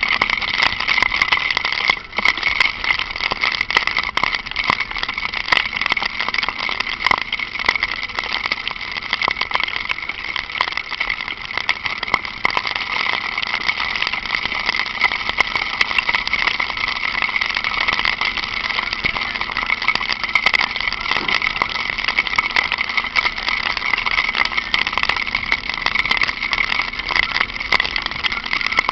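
Honda Falcon 400 motorcycle running steadily in light rain: an even engine-and-hiss noise with many small clicks scattered throughout.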